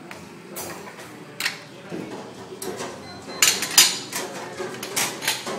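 Ceramic cups and metal espresso-machine parts clinking and knocking as a barista works at the machine: scattered sharp clinks, with several close together about three and a half seconds in.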